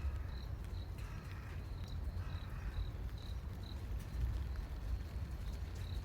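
A cricket chirping at a high pitch, short even chirps about twice a second, stopping about halfway through. Under it runs a steady low rumble, the loudest part of the sound.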